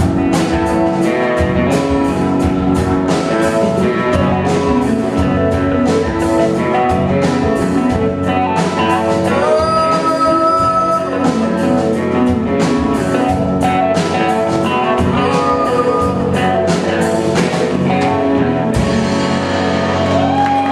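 Live rock band playing: a male singer over acoustic guitar, keyboard and a steady drum beat. The drum hits drop out near the end as the song draws to a close.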